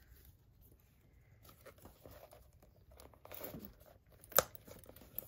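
Leather strap and bag being handled, with scattered small rubbing noises, then a sharp metal click about four seconds in as a snap hook clips onto the bag's ring.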